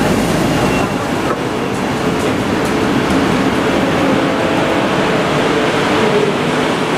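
DB Regio double-deck passenger coaches rolling past a platform as a regional train pulls away, a steady rumble of wheels on rail, with a faint whine joining in about halfway through.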